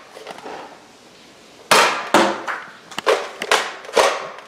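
A Nerf blaster firing foam darts in quick succession: about five sharp clacks roughly half a second apart, starting about a second and a half in, as darts strike wooden cabinet doors and the floor.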